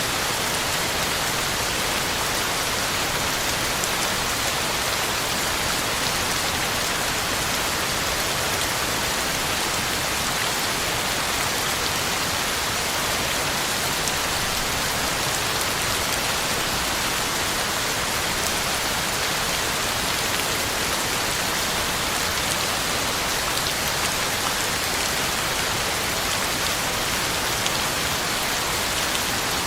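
Heavy rain falling steadily, an even, unbroken hiss of drops hitting the ground.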